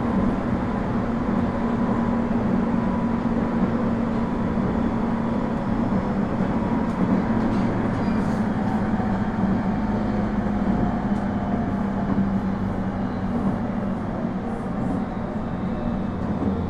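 IGR7000-series electric train running, heard from inside the car: a steady rumble of wheels on rails with a low steady hum. A fainter higher whine slowly falls in pitch in the second half.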